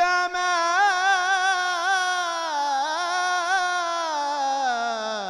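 A male religious chanter (munshid) sings an Egyptian ibtihal solo into a microphone. He draws out one long melismatic phrase on the word "al-gamal" with quick wavering ornaments, and his pitch sinks lower near the end.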